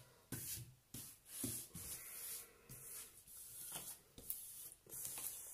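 Hands rubbing and sweeping over the plastic cover film of a diamond painting canvas, a faint uneven series of soft swishing strokes. The film is being smoothed down to press trapped air out from over the glue.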